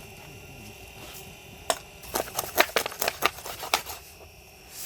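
A quick, irregular run of about ten sharp clicks or taps lasting about two seconds, over a faint steady high-pitched hum.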